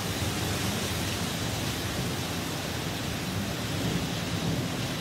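Thunderstorm downburst: gale-force wind and driving heavy rain making a steady rushing noise, with a low rumble underneath.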